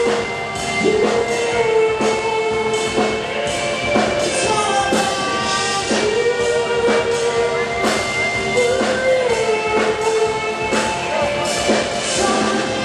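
Rock band playing live: a drum kit keeps a steady beat under long held melody notes and guitars.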